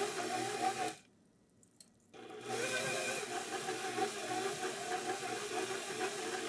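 KitchenAid stand mixer motor running steadily with its paddle churning a bowl of ground pork sausage mix, a constant machine hum. The sound cuts out for about a second near the start, then resumes unchanged.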